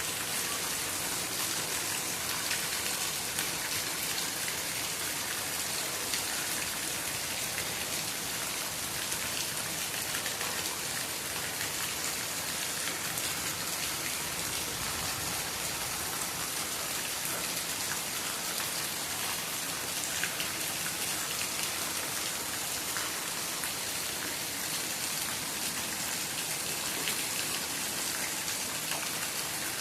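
Steady rain falling, with a dense patter of drops hitting surfaces. The sound stays even throughout, with no thunder.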